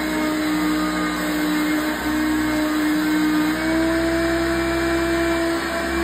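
Hoover Concept One upright vacuum cleaner running on carpet: a steady motor hum over rushing air, its pitch rising slightly about halfway through.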